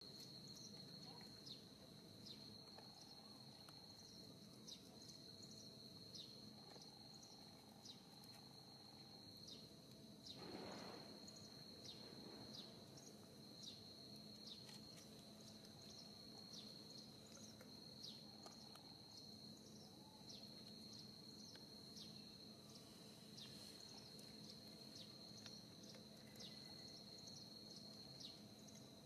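Faint outdoor ambience dominated by a steady, high insect drone with regular short chirps about once a second. A brief soft rush of noise, the loudest moment, comes about ten seconds in.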